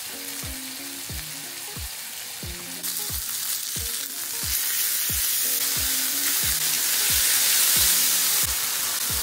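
Thin ground-beef patties sizzling as they sear in a hot frying pan, the sizzle growing louder about halfway through. Background music with a steady beat plays underneath.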